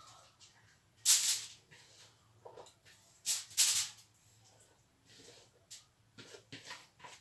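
Short crinkling rustles of aluminium foil and food being handled as seasoned vegetables and fish are laid on the foil by hand. There is a burst about a second in, two more around three and a half seconds, and smaller, fainter rustles near the end.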